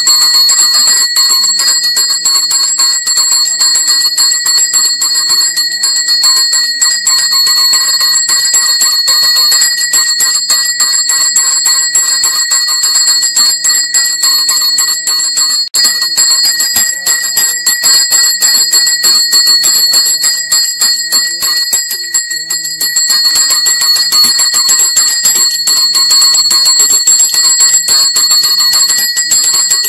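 Temple bells ringing rapidly and without pause, a steady high ringing that runs through the ritual bathing of the idol, with devotional music underneath.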